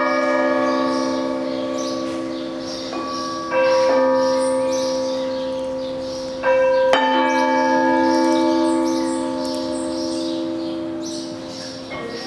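Deep bell-like struck metal, rung every three seconds or so, some strokes in quick pairs, each stroke ringing on for several seconds with many tones at once.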